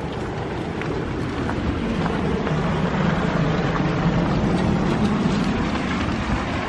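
Steady outdoor rumble and hiss of street noise while walking on a snowy pavement, with faint light ticks over it.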